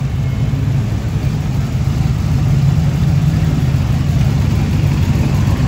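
Red Model A–style hot rod sedan's engine running at low speed as the car rolls past close by, a steady low rumble that grows a little louder about two seconds in.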